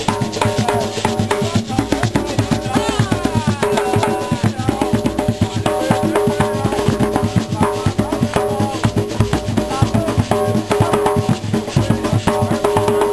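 Several hand drums played together by hand in a fast, dense rhythm, with rattling percussion over them.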